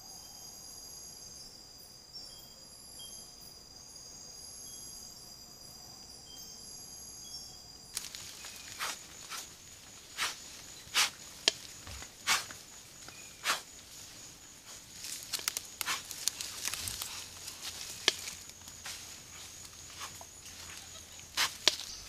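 Night insect chorus of steady high trills and pulses, cut off about 8 s in. Then a run of irregular sharp clicks, snaps and rustles as peccaries move through the leaf litter right by the camera trap, over a faint high insect tone.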